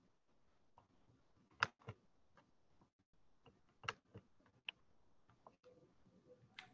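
Near silence on a frozen video call, its audio dropped out, broken only by a few faint, short clicks, the strongest about one and a half seconds in and again near four seconds.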